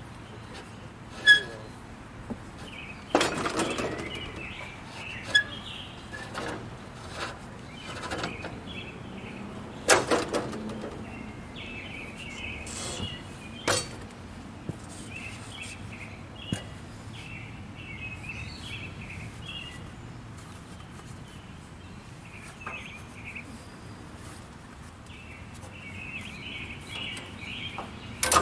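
Small birds chirping on and off, with a handful of sharp knocks and clanks scattered through it, the loudest about ten seconds in.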